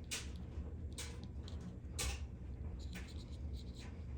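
Brief rustles and clicks from small objects being handled, about once a second, over a steady low hum.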